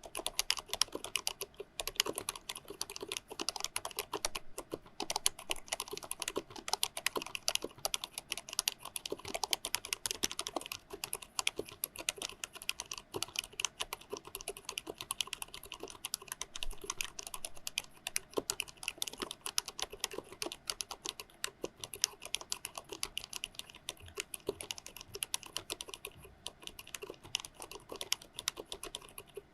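Continuous fast typing on a COX CK01SL mechanical keyboard with low-noise 45gf white switches and PBT keycaps: a dense run of key clacks with a short lull near the end.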